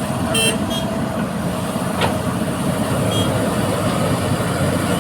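Heavy diesel earthmoving machinery running steadily and loud, with a few short clicks over the engine noise.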